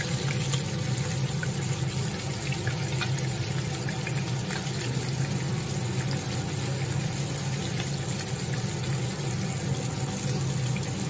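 Fish steaks shallow-frying in hot oil in a pan: a steady sizzle with scattered crackles and pops.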